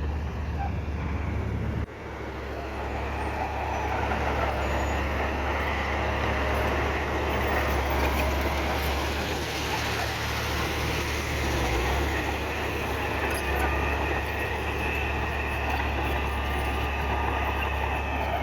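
Diesel engines of heavy earthmoving machinery running steadily, with a deep drone and a rough mechanical rush over it. The level drops suddenly about two seconds in, then climbs back.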